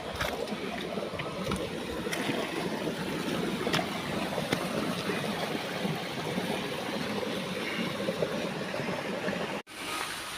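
Steady rushing of running water, with a few faint clicks; it drops out for an instant near the end.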